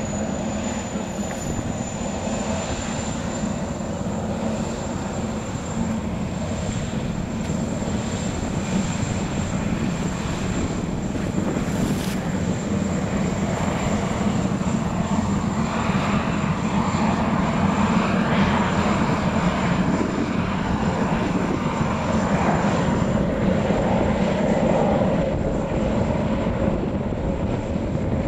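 Boeing 929 Jetfoil running foilborne at speed: its gas turbines make a steady high whine over the rush of the waterjet spray. It grows louder in the second half as the craft comes closer.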